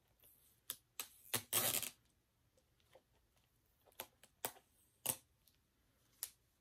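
Plastic Blu-ray case being handled and opened: scattered sharp clicks and taps, with a short scraping rustle about a second and a half in.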